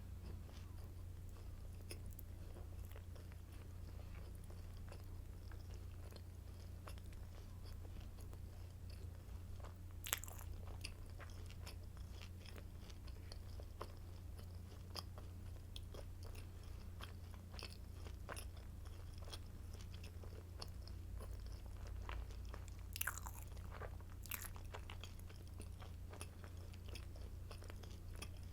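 Close-miked chewing and biting of crunchy garlic baguette sticks: a steady run of small crisp crunching clicks, with louder bites about ten seconds in and twice more a little past twenty seconds. A low steady hum sits underneath.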